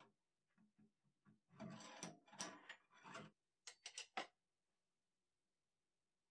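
Metal clicks and scraping rattles as a four-jaw scroll chuck is screwed onto the wood lathe's threaded spindle. A few small knocks lead into a run of rattling, then a quick series of sharp metal clicks about four seconds in.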